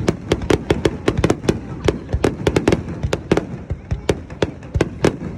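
Fireworks going off in rapid succession: a dense, irregular crackle of sharp bangs, several a second, over a low rumble.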